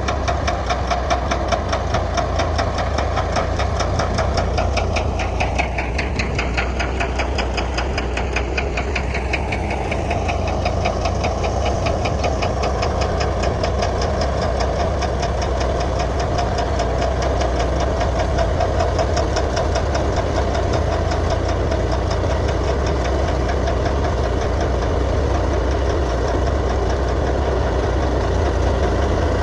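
Komatsu D155A bulldozer's diesel engine running steadily with a fast, even clatter.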